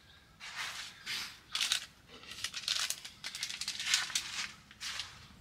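Crinkly rustling of nylon tent fabric as someone moves through the tent: a series of short swishes and crackles.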